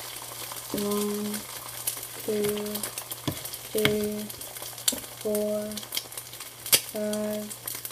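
Fried eggs sizzling in hot grease in a pan just after being flipped: a steady hiss with sharp crackles of spattering fat. Over it come five short, steady-pitched low sounds about a second and a half apart.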